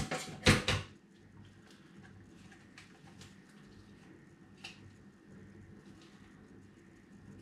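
Scissors snipping open a cider yeast sachet, a few sharp cuts and crinkles in the first second, then quiet with a faint steady hum and one small rustle near five seconds.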